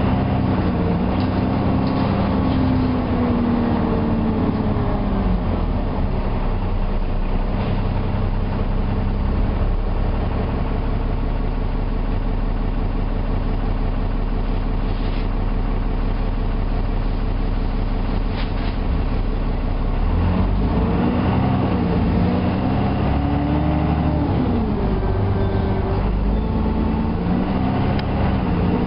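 Enviro400 double-decker bus running, its engine note rising and falling through gear changes over the first few seconds, then holding steady, then rising and falling again from about two-thirds of the way in.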